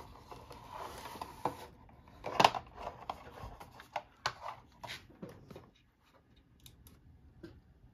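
Hands handling short wires, connectors and a plastic floppy-drive emulator: scattered clicks and rustling, with a sharp click about two and a half seconds in and a few more clicks between four and five seconds in, then it goes quiet.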